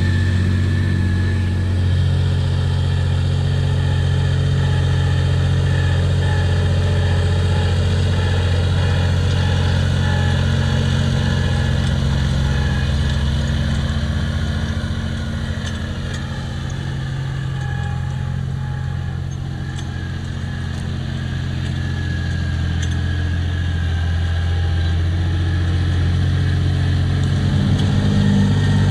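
Massey Ferguson 2640 tractor's six-cylinder diesel engine running steadily under load while pulling a land leveler across soil. The sound drops a little in the middle, then rises again near the end.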